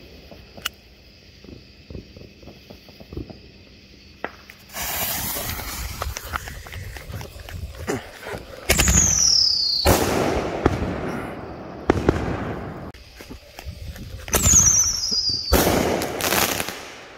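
Ground-based consumer firework tubes going off. About five seconds in comes a hissing rush, then two loud bursts, each opening with a whistle that falls in pitch, with sharp bangs between them.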